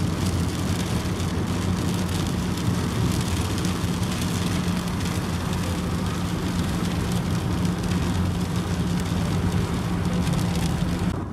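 Steady road and engine noise inside a moving car, with a low drone, and rain hitting the windscreen. It cuts off suddenly just before the end.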